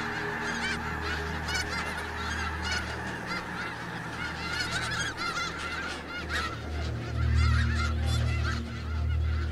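A large flock of snow geese calling: a dense chorus of many overlapping high honks and yelps. A low rumble runs underneath and grows louder about six seconds in.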